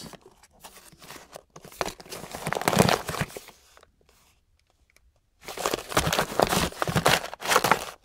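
Plastic zip bags of electronic parts crinkling and rustling as they are handled and shuffled, in two spells with a short pause near the middle.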